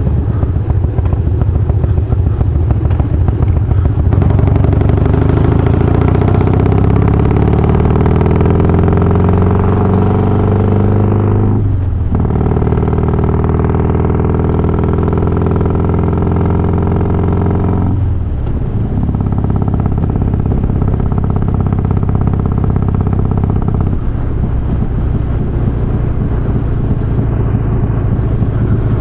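Harley-Davidson Softail's Twin Cam 88 V-twin with Feuling 525 cams, ridden under load: the revs climb, break with a gear change about twelve seconds in and another about six seconds later, then the engine runs steadily.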